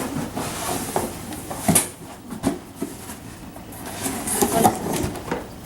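Packaging being handled as a box is unpacked: irregular rustling and scraping with light knocks, the loudest rustle about two seconds in.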